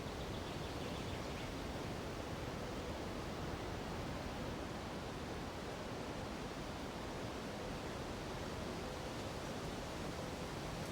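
Steady, even rushing of a nearby mountain river blended with wind through the treetops.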